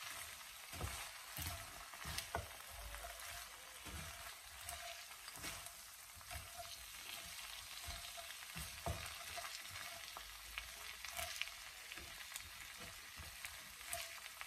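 Chicken and vegetables sizzling in a nonstick wok as they are stir-fried, a steady frying hiss throughout, with scattered soft knocks and scrapes of the spatula against the pan as the food is tossed.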